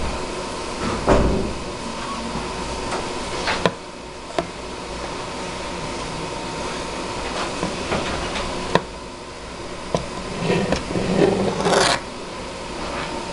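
Hands handling a cable and connector: scattered small clicks and rustling, a short rustle about a second in and a longer one near the end, over a steady background hum.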